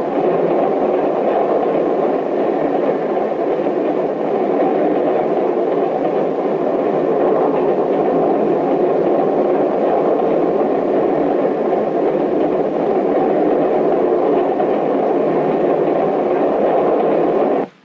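Loud, steady mechanical rushing noise, with no distinct pitch or rhythm, that cuts off abruptly near the end.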